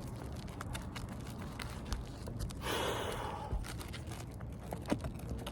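Light scrapes and clicks of a pry bar working under asphalt roof shingles to get at the nails, with a brief noisy rush about three seconds in.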